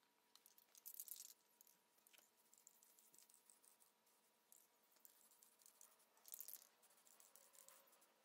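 Very faint, short hisses of an aerosol spray-paint can, about a second in and again after six seconds, with light scattered ticks between.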